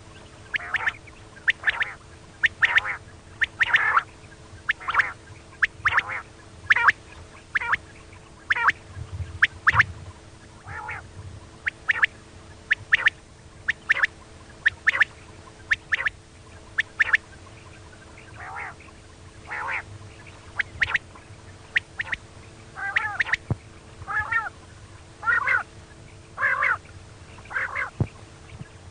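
Female quail giving short, sharp calls about once a second, some as quick double notes, over a faint steady hum.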